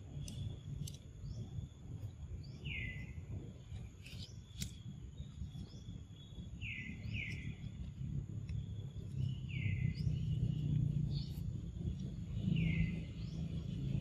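Short high chirping calls, each sliding quickly down in pitch, come about five times, two of them in quick succession about seven seconds in. Under them run a steady low outdoor rumble and a few faint clicks.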